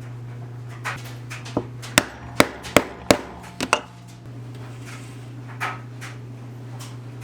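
Four sharp mallet strikes on a leatherworking tool, about three a second, followed by two lighter taps, over a steady low hum.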